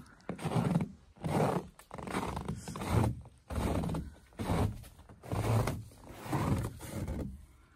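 Footsteps on snowy ground, close to the microphone, about one step a second at a walking pace.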